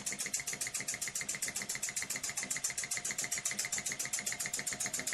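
Small electrically heated model engine, freshly repaired, running steadily with a fast, even clicking beat of about ten strokes a second.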